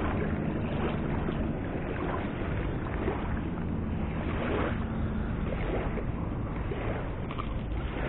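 Steady rushing noise of the river and wind buffeting the microphone, with a low hum underneath.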